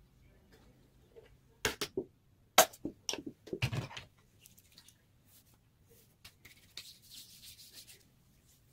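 Sharp plastic clicks and knocks from handling a tube of body lotion, loudest about two and a half seconds in, then hands rubbing the lotion in with a soft swishing rub near the end.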